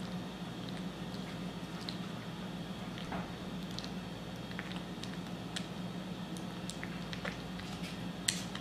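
Kitten eating wet cat food from a bowl: soft, wet chewing and squishing with scattered small clicks, a sharper click near the end, over a steady low hum.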